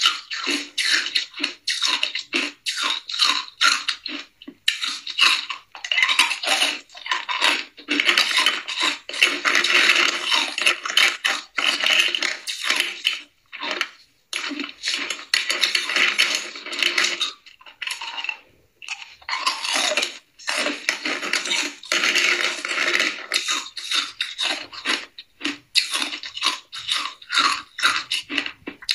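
Hard ice cubes being crunched and chewed, mixed with a spoon scraping and clinking through ice cubes in a plastic box: long stretches of rapid crackling with a couple of brief pauses.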